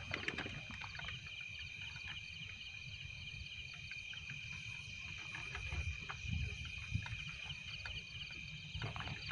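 A steady chorus of night insects chirping in a fast, pulsing rhythm, with scattered low thuds and rustles of footsteps on dry grass.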